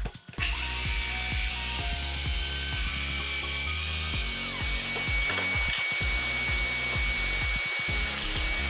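Festool Domino joiner cutting mortises, with the steady hiss of the dust extractor pulling through its hose. One motor whine falls away about halfway through, while the hiss and a higher whine carry on. Background music plays throughout.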